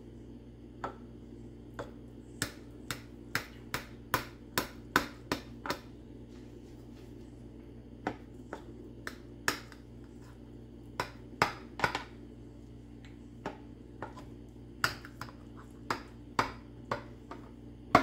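A metal kitchen knife's blade ticking against the bottom of a glass baking dish as it cuts a soft pie into squares. The clicks are sharp and irregular, often several in quick succession, with pauses of a couple of seconds between cuts.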